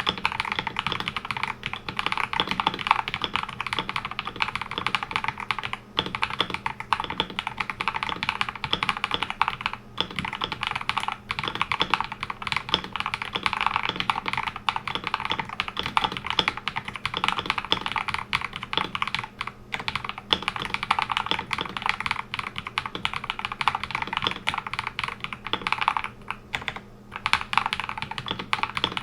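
Steady typing on an Akko 5075S mechanical keyboard with Akko Rose Red linear switches lubed with Krytox 205g0, on a polycarbonate plate. The keystrokes run on with a few brief pauses, the longest about a second near the end.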